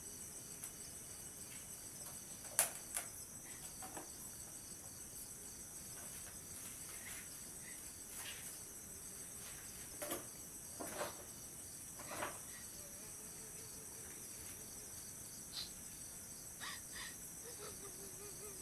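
Crickets chirring steadily in a night insect chorus, with a few faint clicks or knocks scattered through, the sharpest about two and a half seconds in.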